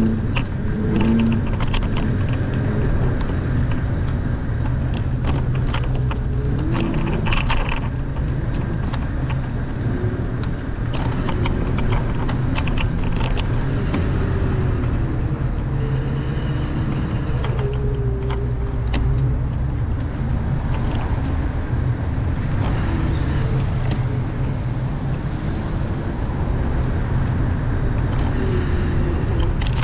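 Steady low rumble of wind and wheel noise from a camera riding along a paved street, with scattered short clicks and rattles.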